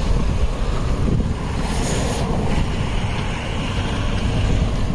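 Wind rumbling on the microphone with street traffic going by; a brief hiss swells and fades about two seconds in, like a car passing.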